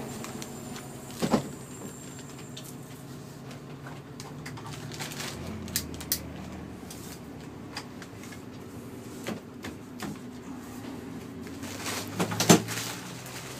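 Mercedes V8 diesel engine of a Neoplan N116 bus idling steadily, heard from inside the cabin, with scattered knocks and clatter of interior fittings. The loudest knock comes near the end.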